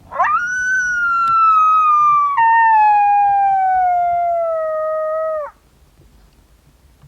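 One long coyote howl: it swoops up sharply, slides slowly downward, breaks to a lower pitch about two and a half seconds in, and stops about five and a half seconds in.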